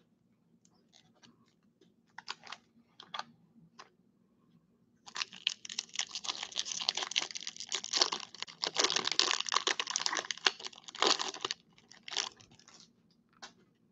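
Foil wrapper of a trading-card pack being crinkled and torn open by hand: a few short crinkles, then about six seconds of dense crackling as the wrapper is pulled apart, then a few last crinkles.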